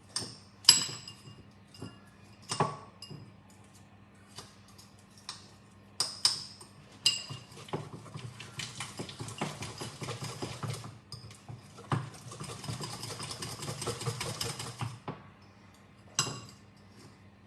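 A hand utensil whipping cream cheese icing in a small bowl: a few separate clinks against the bowl, then two spells of fast, rhythmic clicking and scraping as it is whipped, and a last clink near the end.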